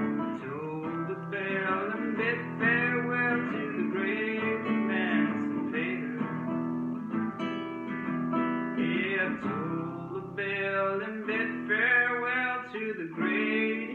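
Acoustic guitar strummed steadily in an old-time folk tune.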